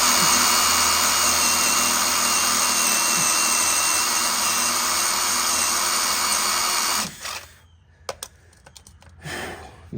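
Power drill running steadily under load as it bores into a broken-off yoke bolt, with a constant high whine; it stops suddenly about seven seconds in, followed by a few light clicks and knocks.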